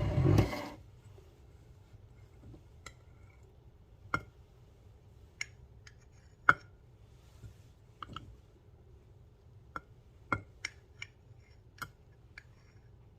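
A short loud noisy knock at the start, then a metal spoon clinking against a glass or cup about a dozen times, a second or two apart, while honey is scooped and stirred into boiled elderberry tea.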